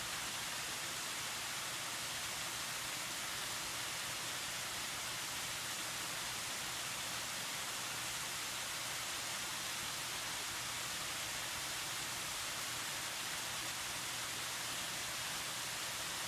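Steady hiss of falling water from a waterfall cascading down a rock face, even and unbroken.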